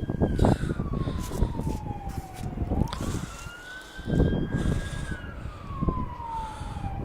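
A siren wailing in two slow cycles: each rises, holds high for a moment, then falls slowly, with the second rise about three seconds in. Irregular low rumbles run underneath.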